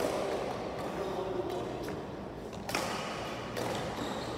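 Badminton rackets striking a shuttlecock: a few short, sharp hits, the loudest nearly three seconds in, in a large echoing hall. Players' voices sound in the background early on.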